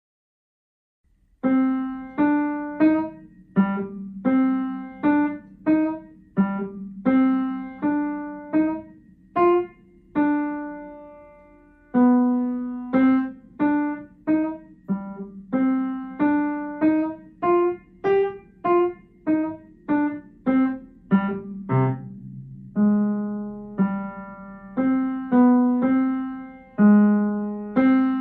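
Background piano music: a melody of single struck notes, each dying away, starting about a second and a half in.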